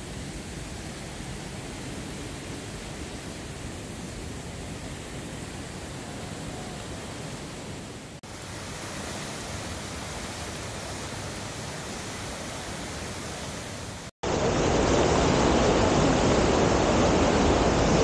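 Steady rushing of a mountain stream and waterfall, becoming suddenly much louder about three-quarters of the way through, close beside the falls where they pour into a pool.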